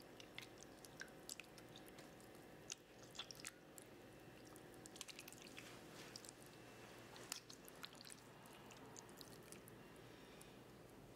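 Faint wet squelching and squishing of canned whole tomatoes being crushed by hand in a glass bowl, in scattered bunches of small sharp clicks, busiest around three, five and seven seconds in.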